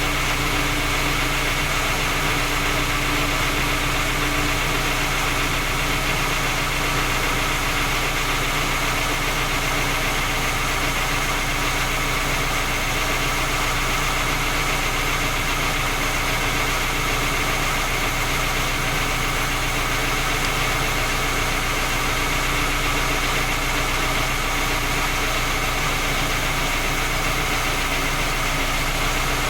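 Skoda Octavia A5 1.6 MPI four-cylinder petrol engine idling steadily with a knock, a cold-engine knock that three engine repairs have failed to find or cure.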